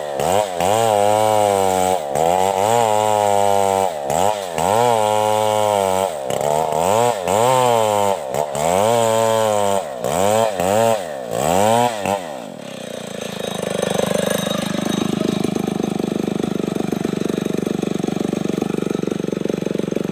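Two-stroke chainsaw ripping through a coconut palm trunk, its engine pitch dipping and recovering about once a second under load. About twelve seconds in it drops off the throttle and settles into a steady idle.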